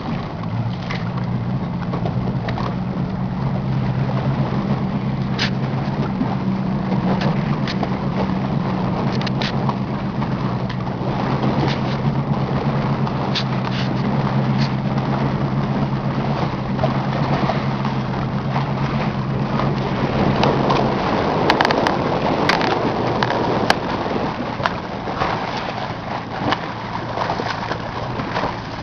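A motorboat engine runs with a steady low hum over a rushing background noise, with scattered clicks. The engine hum stops about 21 seconds in, leaving the rushing noise.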